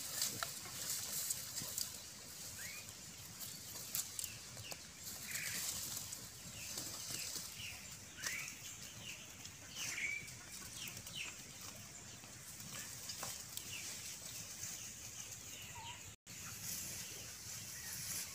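Young pigs rooting through dry leaf litter and undergrowth, making scattered rustles and crackles. Short high bird chirps come and go throughout, over a steady high hiss.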